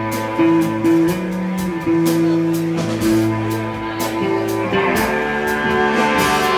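Large band playing live: saxophones, clarinet, trumpet and trombone hold long notes over guitars, bass and drums, with a cymbal struck on a steady beat. The horns shift to new notes about every second, and the sound fills out near the end.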